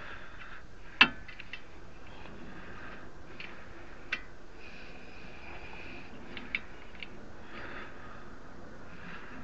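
Metal hand tools clinking against car parts: one sharp clank about a second in, then a few lighter clicks, over a faint steady background.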